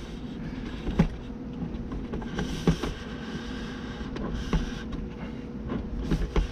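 Handling noise from a camera mount being repositioned: scattered knocks and rubbing, with a few sharper clicks, over a steady hum.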